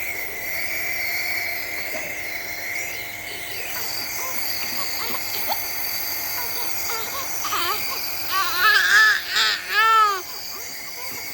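A toddler's wordless vocalising: short rising-and-falling whiny babbling cries that start about two-thirds of the way in and are loudest near the end, over a steady high background hum.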